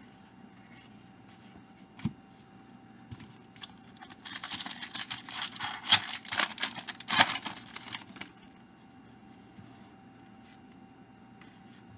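A trading card pack wrapper torn open and crinkled in the hands for about four seconds, crackly with a couple of sharper rips, after a single light tap.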